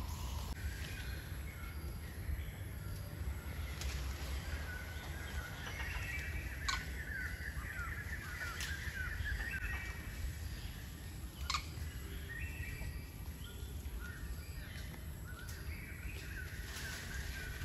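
Forest ambience: birds chirping in quick, warbling runs of short notes, heaviest in the middle and again near the end, over a steady low rumble. A few sharp clicks cut through now and then.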